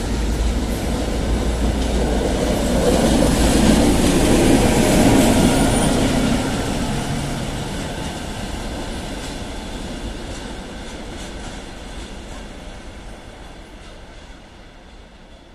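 SNCB class 62 diesel locomotive running light: a low engine hum and wheel rumble, with clicks of the wheels over rail joints and points. It grows loudest about four to five seconds in as it passes, then fades steadily as it moves away.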